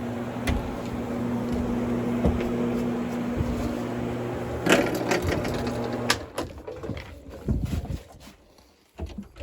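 Electric motor of a carpet-cleaning machine running with a steady hum, switched off about six seconds in. Sharp clicks and knocks come just before and at the stop, then scattered quieter knocks.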